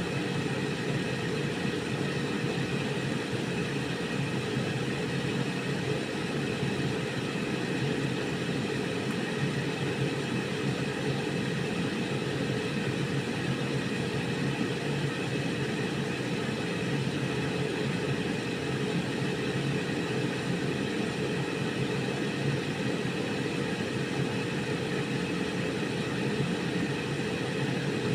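Electric air fryer running: its fan and heater blowing hot air in a steady hum with a constant tone, the cooking cycle still under way.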